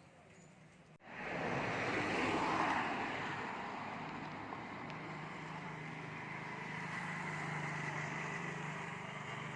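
A motor vehicle's engine and road noise, starting abruptly about a second in, loudest at around two and a half seconds, then running steadily.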